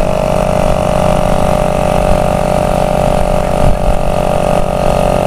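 Air compressor running steadily, pushing air through a coiled hose into a truck's rear air shocks, with a steady whine over a low hum. The air shocks keep losing pressure and are being topped up.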